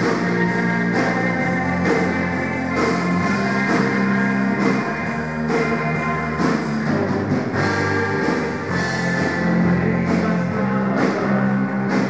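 Rock band playing live at a soundcheck: drum kit with electric guitar and bass, played without a break.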